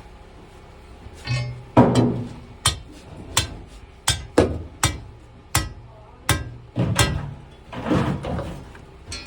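A series of sharp knocks and clanks, about a dozen at uneven intervals, some with a short ring after them.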